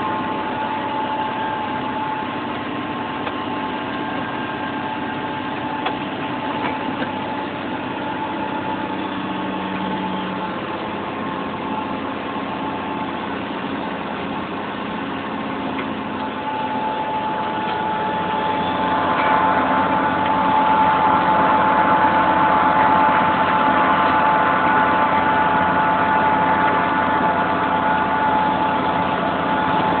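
John Deere 6920 tractor's six-cylinder diesel engine running steadily while pulling a five-furrow plough, heard from inside the cab, with a steady whine over it. It grows louder about two-thirds of the way through.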